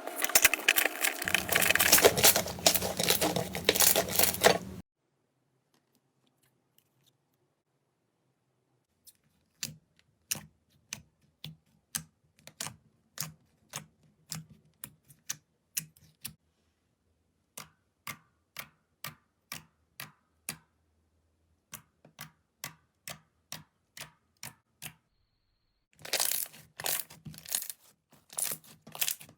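Slime being handled: dense crackling and crunching for the first few seconds, then a pause, then a long string of separate sharp clicks, about two or three a second, then dense crackling again near the end.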